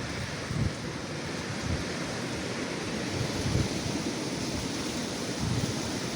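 Strong gusty wind blowing steadily, with a few low buffets of wind hitting the microphone.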